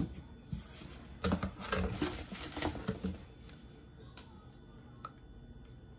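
Plastic hand-soap bottles being handled in a cardboard box: a sharp knock at the start, then a run of clicks, knocks and rustling about a second in that lasts around two seconds, and one more light click near the end.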